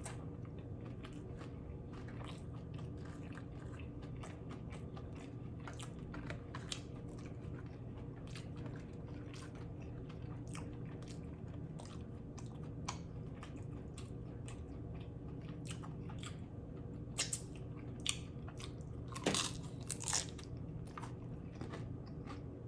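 Close-up chewing and crunching of loaded steak nachos, the tortilla chips crackling as they are bitten and chewed. A few louder crunches come near the end.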